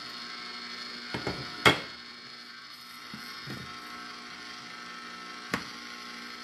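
Electric ice cream maker's motor running steadily, turning the dasher, with a sharp knock about 1.7 s in and a single sharp click a little before the end as the plastic lid is locked down.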